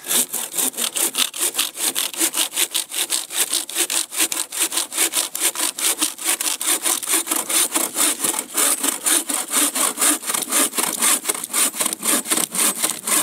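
Bow saw cutting through a log, with rapid, even back-and-forth strokes, about four a second, kept up without a break.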